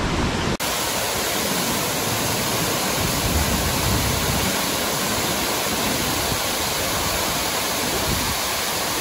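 Waterfall rushing: a steady, even noise of falling water, broken by a brief dropout about half a second in.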